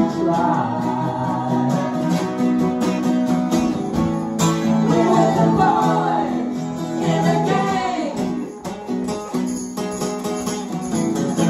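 A small band playing a song live: guitars strummed, one of them acoustic, with sung vocals.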